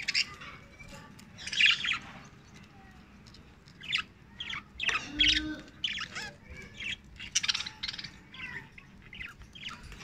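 Several budgerigars chirping and chattering in short, scattered calls, with a louder burst of calls about one and a half seconds in.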